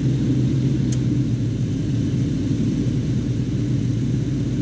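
1975 Chevy C10 pickup's engine idling steadily with the AC compressor switched on, with one faint tick about a second in.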